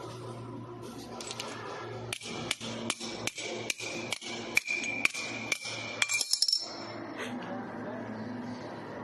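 3 kW laser welding machine running on 5 mm aluminium plate: a steady high whine with sharp, evenly spaced ticks about two and a half times a second, ending in a quick flurry of ticks before it cuts off about two thirds of the way through. A low steady hum runs underneath.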